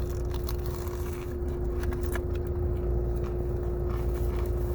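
Car engine idling: a steady low rumble with a constant hum note, and a few faint clicks.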